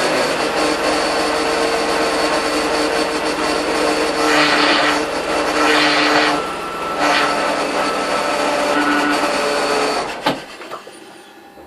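BMW Z3 2.2's inline-six engine running steadily, with three brief louder surges of hiss in the middle. About ten seconds in, a click is followed by the engine noise falling away sharply.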